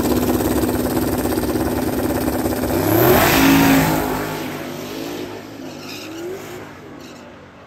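Drag cars, a second-generation Chevrolet Camaro among them, launching at full throttle. The engine noise rises in pitch and is loudest about three seconds in as the Camaro passes close, then fades away down the track.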